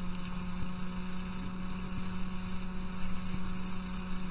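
Steady electrical hum in the recording, a low drone with fainter higher tones stacked above it over a light hiss.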